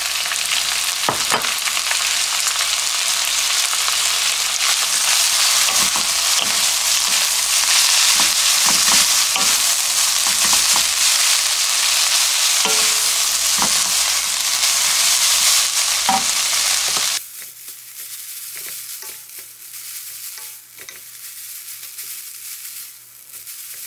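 Wet, rehydrated bracken fern sizzling loudly in hot oil in a frying pan while chopsticks stir and tap it against the pan. The fern was only drained, not squeezed, so its water spits in the oil. About two-thirds of the way through, the sizzle drops suddenly to a much quieter frying sound with occasional taps.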